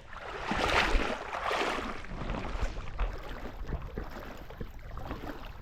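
Creek water splashing and sloshing as a small hooked Murray cod is drawn in on the line, loudest in the first two seconds or so and then quieter and uneven.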